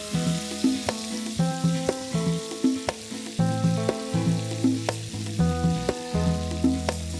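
Marinated chicken pieces sizzling as they fry in ghee in a non-stick pan, with a wooden spatula turning them and tapping against the pan now and then. Background music with held notes and a bass line plays under the frying.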